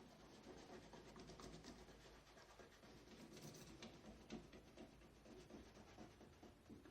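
Faint scratching and rubbing with small clicks: transparent tape being pressed and smoothed down by hand over paper labels.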